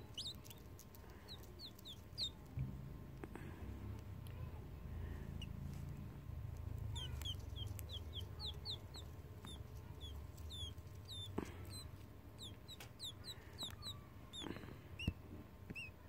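Quail chick peeping: quick runs of short, high chirps that each fall in pitch, in three bouts, at the start, around the middle and near the end. A low rumble from handling runs under the middle part, with a few sharp clicks.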